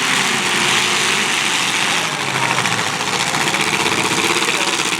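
Engines of 1980s demolition derby cars running together, with a fast, even pulsing beat from about two seconds in.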